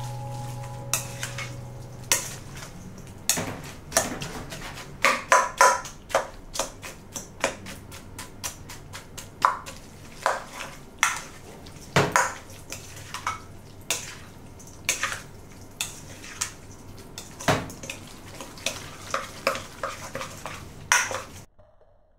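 A spoon stirring and tossing chopped pomelo with spices in a stainless steel bowl: irregular clinks and scrapes of the spoon against the metal, about one or two a second, stopping just before the end.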